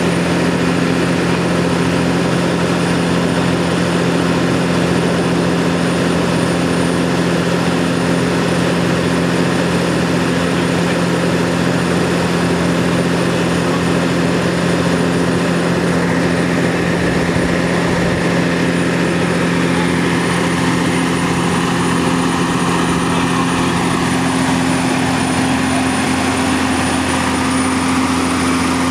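Fire engine's engine running steadily to drive its pump during a pump test, water being pumped through hoses to a ground nozzle.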